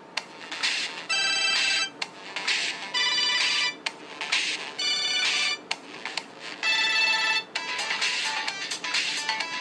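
A Samsung C3300K Champ mobile phone playing one of its built-in ringtones through its loudspeaker. It is an electronic melody that starts just after a brief gap, with a bright phrase repeating about every two seconds.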